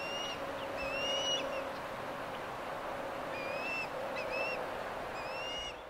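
Ospreys calling at the nest: about six short, high whistled notes, each slightly rising, some in quick pairs, over a steady rushing background. The sound fades out at the very end.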